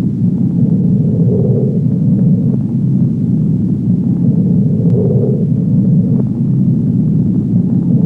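Film projector running: a dense, steady low mechanical rattle, with a swell coming back about every three and a half seconds.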